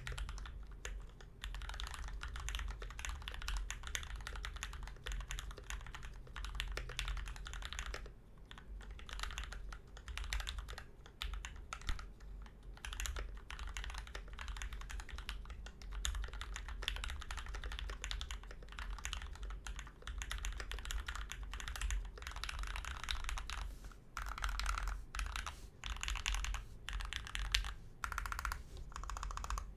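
Fast continuous typing on an aluminium-cased mechanical keyboard with lubed Gateron Black linear switches and PBT keycaps on a thick desk mat, with a few short pauses between bursts.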